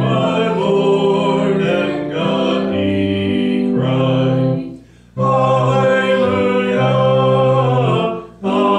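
A hymn sung phrase by phrase over a sustained low instrumental accompaniment, with short pauses between phrases about five seconds in and near the end.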